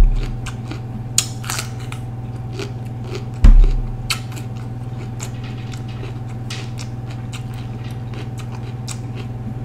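A person chewing a mouthful of raw green bell pepper, with scattered crisp crunches. Two dull low thumps stand out, one at the start and one about three and a half seconds in, over a steady low hum.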